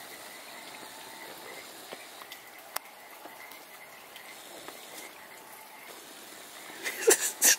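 Outdoor ambience of frogs and insects calling steadily, with a few faint clicks; a handful of louder short sounds come near the end.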